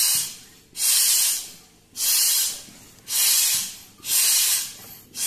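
Bicycle hand air pump driven in quick strokes, each stroke a hissing blast of air from its hose, about one a second. The air is forced into a gas stove burner's jet to blow out the dust clogging its small hole.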